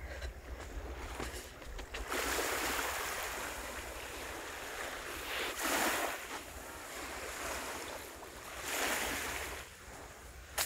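Small waves washing onto a sandy shore, surging three times, with a low rumble of wind on the microphone underneath.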